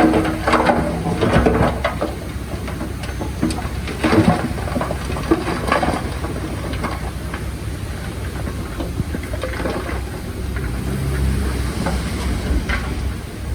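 Diesel engine of heavy earthmoving machinery running steadily under load, with a low rumble, a grinding hiss and scattered clanks and squeaks.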